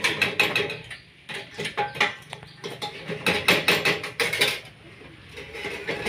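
Quick clicks and light metallic clatter in three or four bursts with short pauses, from a 12-volt popcorn machine and the popcorn in its glass cabinet.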